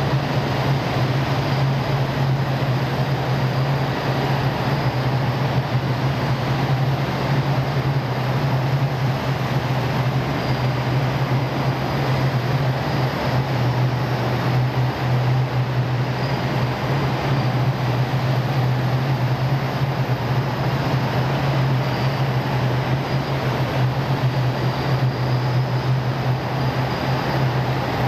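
Column of tanks and wheeled armoured personnel carriers driving past. Their heavy engines run with a steady, deep hum over a continuous rolling rumble of tracks and tyres on the road.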